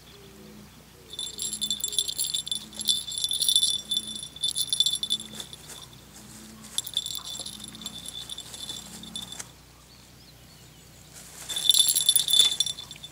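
Small jingle bell on a feather wand cat toy jingling in irregular bursts as a cat bats, bites and kicks at it. There is a lull before the loudest burst near the end.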